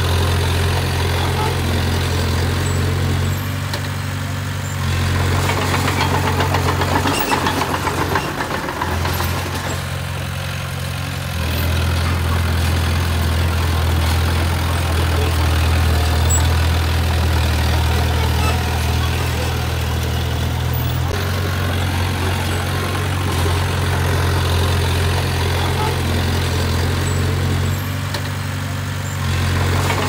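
Bulldozer's heavy diesel engine running, its pitch and loudness shifting several times as the load changes.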